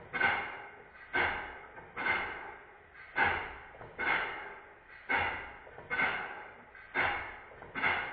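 Stuart model beam engine running on compressed air: a regular exhaust puff about once a second, each starting sharply and fading into a hiss.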